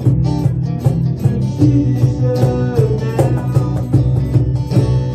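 Small band playing live: guitars strummed and picked over a steady bass guitar line and a cajón beat, in an instrumental stretch without singing.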